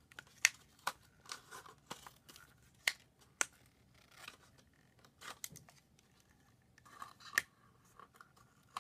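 Thin plastic bottle strips being pushed outward one by one by hand into petals, each giving a sharp plastic click as it bends over, with faint crinkling between. About ten clicks at irregular intervals.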